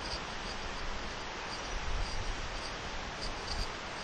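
Outdoor garden ambience: a steady hiss with faint, short high chirps repeating irregularly, and a few soft low bumps around the middle.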